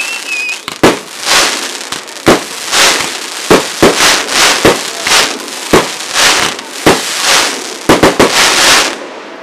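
Fireworks display: a rapid series of sharp bangs from launches and shell bursts, about one or two a second, between swells of hissing crackle from glittering shells. The barrage eases off just before the end.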